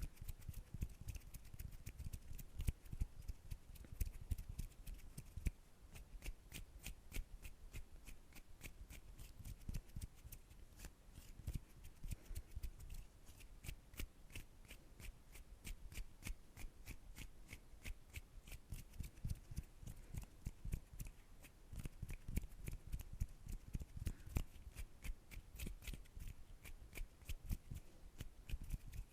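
Hand sounds close to the microphone: a rapid, continuous stream of dry clicks and rustles.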